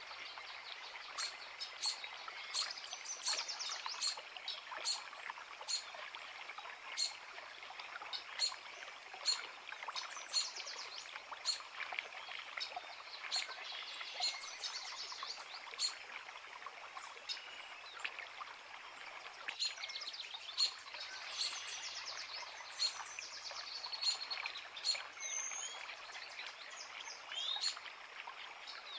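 A forest creek's steady rush of water with several birds singing over it, quick chirps and trills. Sharp clicks recur about every half second to second throughout.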